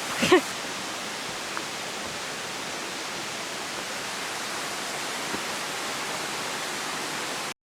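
Waterfall splashing as a steady, even rush of water that cuts off suddenly near the end. The falls carry only a light flow during a drought.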